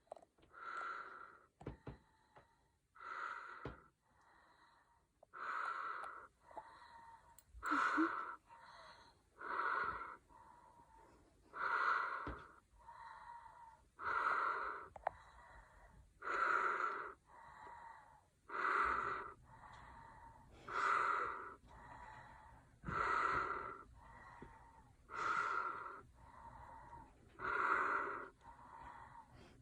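A woman snoring loudly in her sleep: a loud, rasping snore about every two seconds, with a softer breath between each.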